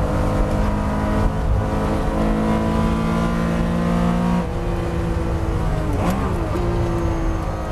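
The 1975 Porsche 911 2.7 Carrera's air-cooled flat-six racing engine running hard at high revs. The pitch drops abruptly about halfway through, then makes a quick dip and rise about two-thirds of the way in before running on steady.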